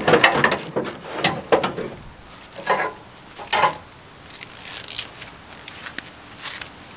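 Pickup truck's sheet-metal bed side panel being pulled loose from the frame by hand: irregular knocks, creaks and scrapes of metal over the first four seconds, fading to faint ticks after.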